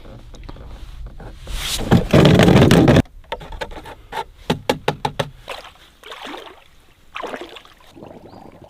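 Water splashing loudly for about a second as a plastic-bottle fish trap goes into shallow water, followed by a run of quick gurgling clicks that fade away and a few softer sloshes.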